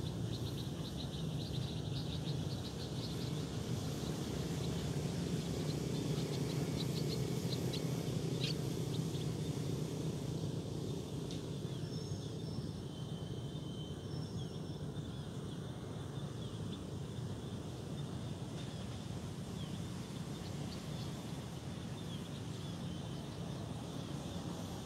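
Small birds chirping, a quick run of short high chirps in the first part, then a few thin, short whistled notes. Under them runs a steady low rumble of city traffic.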